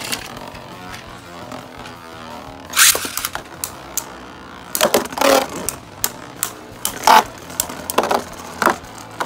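Beyblade spinning tops whirring on a plastic stadium floor. A second top is launched in about three seconds in. The two tops then collide with sharp clacks, in quick clusters about five seconds in and again near the end.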